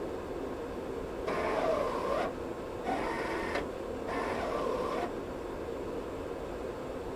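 HP large-format poster printer's internal motors whirring in three short runs of about a second each, their pitch sliding up and down, over a steady hum.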